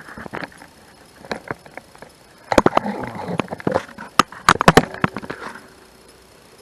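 Sharp metallic clicks and knocks of a lawnmower wheel being fitted back onto its transaxle shaft. The sounds come scattered, with a busy stretch about two and a half seconds in and a quick run of loud clicks just past four seconds.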